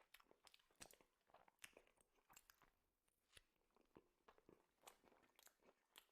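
Very faint chewing of food close to the microphone: a string of irregular small clicks and crunches, several a second.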